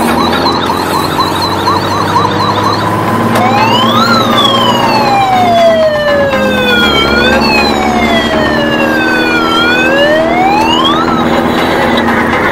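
Electronic siren of a battery-powered toy fire truck: a fast warbling yelp for about the first three seconds, then a slower wail that rises and falls in long sweeps.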